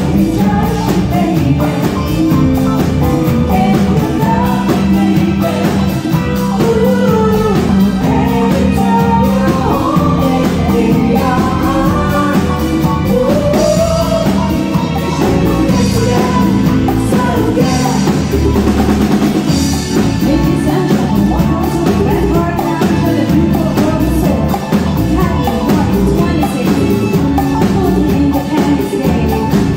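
A live band playing a song with sung lead vocals over drum kit, electric guitar and percussion, with a few bright cymbal hits in the middle.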